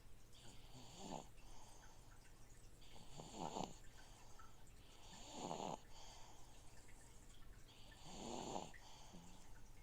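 A sleeping baby snoring faintly, four snores about two and a half seconds apart, over the steady low hum of an aquarium filter pumping water.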